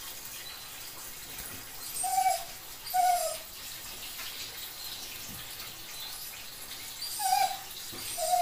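Rough collie whining in four short high calls, two about two seconds in and two near the end, in distress at being bathed. Tap water runs steadily into the bathtub underneath.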